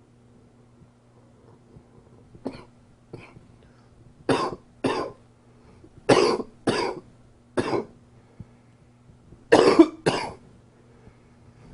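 A man coughing: a couple of small throat sounds, then seven hard coughs from about four seconds in, mostly in quick pairs.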